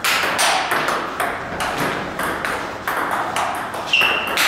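Table tennis rally: the ball clicks off the bats and bounces on the table in a quick, steady back-and-forth. Near the end there is a short high squeak.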